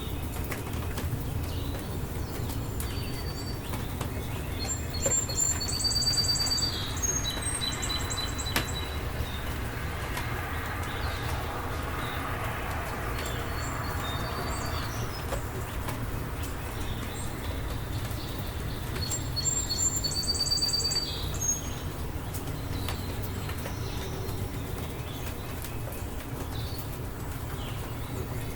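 Steady rainstorm noise with a songbird singing a short, high trilled phrase twice, once about five seconds in and again about nineteen seconds in.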